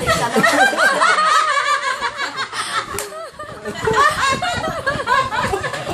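Several women laughing together, overlapping giggles and chuckles that ease off briefly about three seconds in, then rise again. A single sharp click sounds just before the lull.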